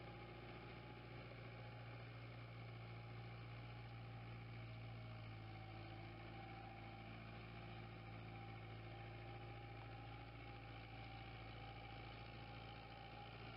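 Diesel engine of a high-clearance spraying tractor running at a steady speed as it drives through a field: a faint, even, low drone that does not change.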